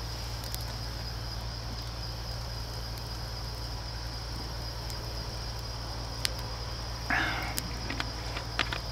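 Insects chirring steadily at a high pitch in woodland, with a few faint clicks and a short harsh sound about seven seconds in.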